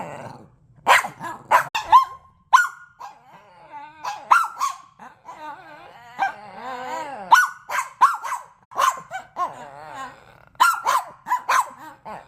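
Dog barking in short, sharp barks, several in quick succession, with a stretch of wavering whining and growling calls in the middle.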